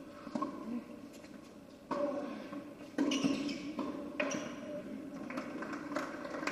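Tennis rally on an indoor hard court: racket strikes on the ball about once a second, each ringing in the hall, with shoe squeaks between the shots.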